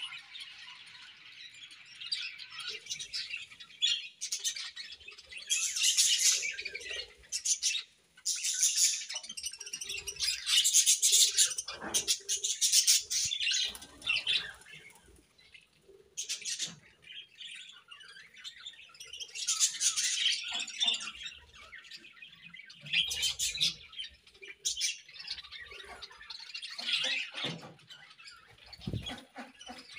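A flock of budgerigars chirping, in busy bouts of chatter that swell and fade every few seconds with short lulls between.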